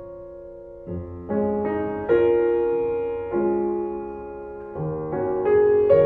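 Slow, gentle piano music: single notes and chords struck every half second to a second and left to ring and fade, after a quieter held chord at the start.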